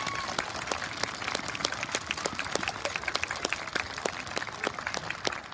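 Audience applauding, with many people clapping at once in a dense, steady patter.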